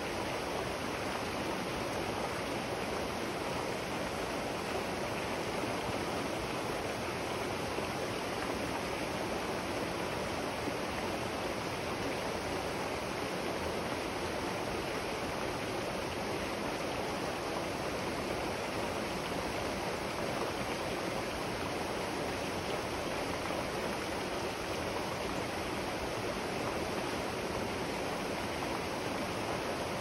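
River water flowing steadily: an even, unbroken rushing.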